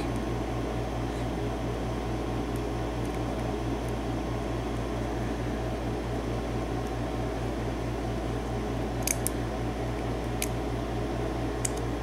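Steady low hum with a regular pulsing throb, as from a fan or motor running in a small room. A few faint small clicks near the end come from pliers pulling a retaining pin out of the side of the padlock's brass cylinder.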